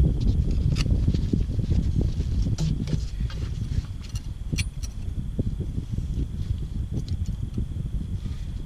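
Metal hand tools, a wrench and an Allen key, clinking in scattered sharp clicks against the rocker arms and lock nuts while a valve-lash adjusting screw is backed off. Under it runs a steady low rumble.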